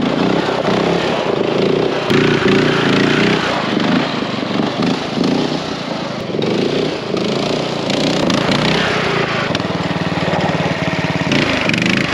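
Riding lawn mower engine running as the mower is driven, its speed set by a pedal on a throttle cable instead of a governor, so the revs rise and fall abruptly. Late on it drops to a lower, pulsing speed for a couple of seconds, then picks up again.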